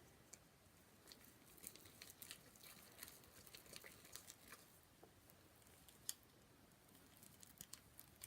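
Faint, irregular small clicks and squelches of sticky slime being stirred as the activator makes it clump together.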